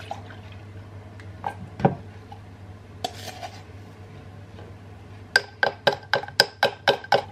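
A spoon clinking quickly against a drinking glass, about nine ringing clinks in under two seconds near the end, as a milky drink is stirred. Before that come a few soft knocks of the jug and glass on a wooden table.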